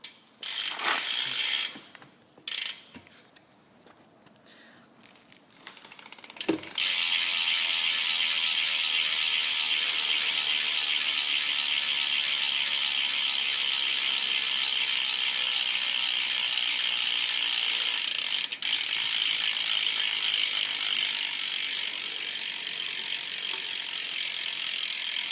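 Rear McNeil Blazer BMX hub ratcheting as the back wheel is spun. Two short clicking bursts, then from about seven seconds a continuous rapid buzz of clicks while the wheel coasts, easing slightly near the end.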